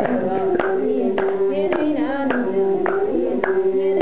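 Women singing to steady hand-clapping, roughly two claps a second, accompanied by an imzad, the Tuareg one-string bowed fiddle.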